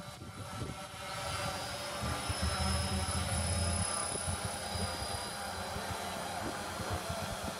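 RC quadcopter giving a steady helicopter-like whir, with a thin high whine that starts about a second in and rises slightly.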